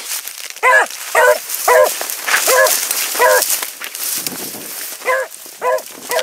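A beagle giving tongue on a hare's track: short, ringing barks that each rise and fall in pitch, five about half a second apart, a pause, then three more near the end. The baying means the hound is on the hare's scent and trailing it. Under the barks is a steady hiss of wind and brush.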